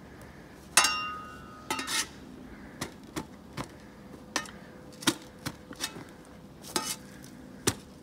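Steel shovel blade chopping into the dirt to cut an edge line. There is a ringing metallic clang about a second in, then a string of irregular sharp knocks every half second to a second.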